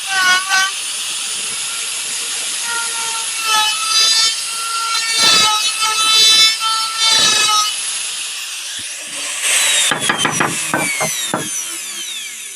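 Electric wood router cutting a mortise into a wooden window frame, the motor whining over the noise of the bit chewing through the wood. About ten seconds in the router is switched off and its whine falls steadily in pitch as the motor spins down, with a few clicks.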